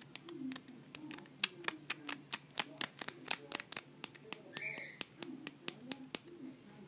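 A quick, even run of about a dozen sharp clicks, roughly four a second, over a low wavering sound that runs throughout.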